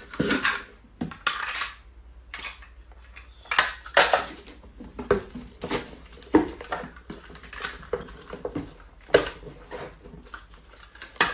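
A series of irregular sharp clatters and knocks, hard objects striking, about fifteen in all at uneven spacing.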